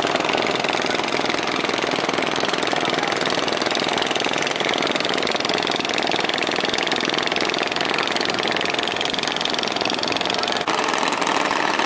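Engine of a cross-river sampan running steadily with a fast, even chugging beat.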